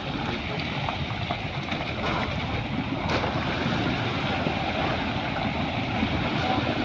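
Boat engine running steadily, a continuous din under the noise of the crew working the net.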